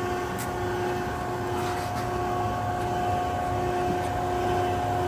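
The 100-ton hydraulic press's electric pump unit running at a steady drone with a steady whine, the press standing ready as a red-hot cylinder is set between its dies.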